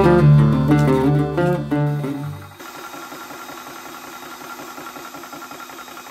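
Guitar music that fades out about two seconds in, followed by the steady running sound of a VEVOR 4500 psi portable PCP air compressor, with a fast rhythmic chatter and a steady high whine.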